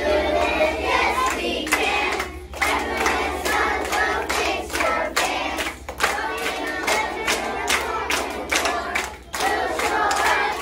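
A group of children singing an advertising jingle together in unison, clapping along in rhythm.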